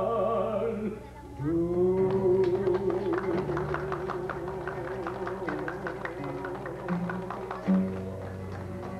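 Balitao song: a singer holds one long note with vibrato over strummed acoustic guitars, which keep a fast, even strum; a brief loud knock comes near the end.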